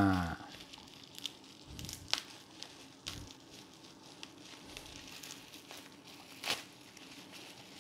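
Plastic bubble wrap crinkling and rustling as it is pulled off a small circuit-board panel, with scattered sharp crackles, the strongest about two seconds in and again near six and a half seconds. The tail of a long held pitched sound cuts off just after the start.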